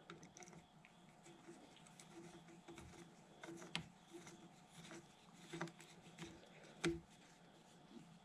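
Faint clicks and scrapes of a hand screwdriver driving small M4 screws into a DRO scale bracket, metal on metal. A few sharper clicks come in the second half, the loudest near the end.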